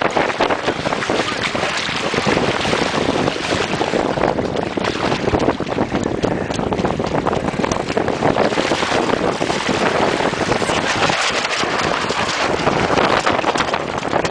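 Wind noise on the microphone, rising and falling, with water rushing aboard a sailing boat.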